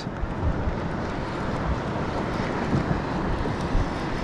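Steady wind rumble on the microphone, with sea water washing around a kayak.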